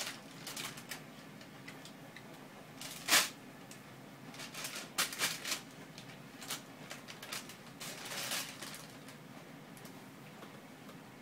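Thin plastic shopping bag crinkling and rustling in irregular bursts as a Siberian kitten paws at it and settles onto it, with one loud crackle about three seconds in.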